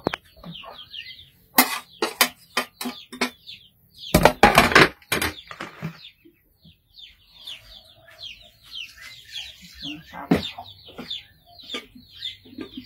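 Small birds chirping and chickens clucking in the background, with a run of sharp knocks and then a short, loud clatter about four seconds in.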